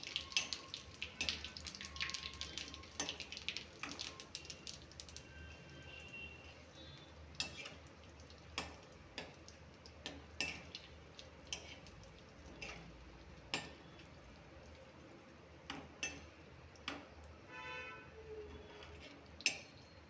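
Whole spices (cumin, asafoetida, bay leaf and dried red chillies) crackling and popping in hot oil in a steel kadhai, dense for the first few seconds and then thinning to scattered pops, with a metal ladle clicking and scraping against the pan as they are stirred.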